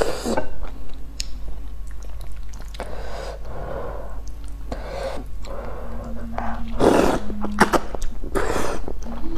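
A person slurping and chewing noodles, with several noisy slurps a second or two apart.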